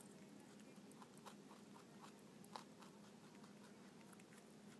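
Dwarf Hotot rabbit chewing raw vegetables: faint, irregular crisp clicks of crunching and nibbling, with one sharper crunch about halfway through.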